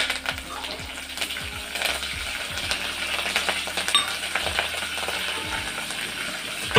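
Sliced onion, garlic and curry leaves sizzling in hot oil in a metal pot as a tempering, while a metal spoon stirs them, scraping and clinking against the pot.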